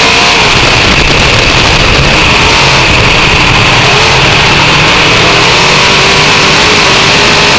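Dirt-track race car's V8 engine running hard under racing load, heard from inside the cockpit: loud and steady, its pitch wavering slightly.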